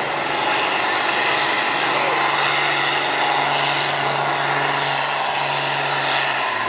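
Farm stock pulling tractor's diesel engine running hard and loud under load as it drags the sled. A high whine climbs in pitch around the start, then holds steady.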